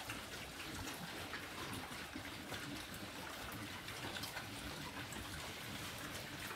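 A pen of pigs feeding on chopped green vegetables, chewing and rooting on a wet concrete floor: a steady crackle of many small overlapping clicks.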